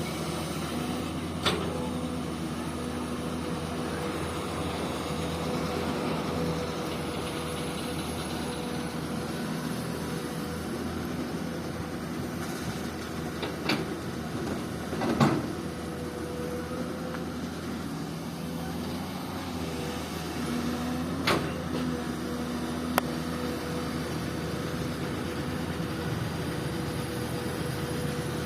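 Komatsu PC200 hydraulic excavator's diesel engine running steadily, with a few sharp knocks scattered through it.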